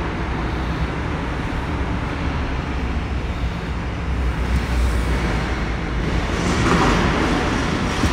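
Van driving slowly, heard from inside the cab: a steady low engine and road rumble, with a louder rush of noise about six and a half seconds in.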